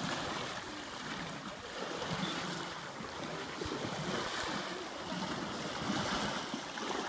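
Water sloshing and splashing around an elephant's legs as it wades through a shallow river, a rushing splash that swells and eases unevenly.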